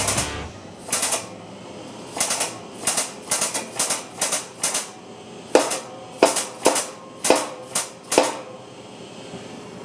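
A series of about sixteen sharp, irregular knocks, like metal parts or tools striking metal; the later ones ring briefly.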